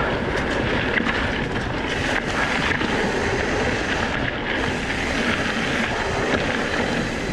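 Steady wind rush over the microphone of a mountain bike riding fast down a loose, shaly trail, with tyres crunching over the shale and small rattles and ticks from the bike.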